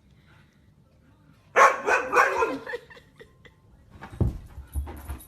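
A dog barking: a quick run of loud barks about a second and a half in, followed by low thumps and rustling near the end.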